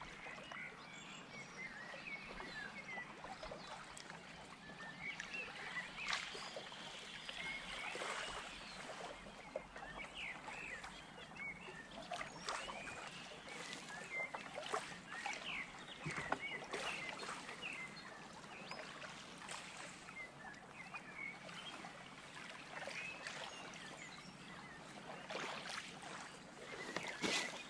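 Small waves lapping and trickling at the lake shore, a steady gentle splashing with scattered faint clicks and knocks.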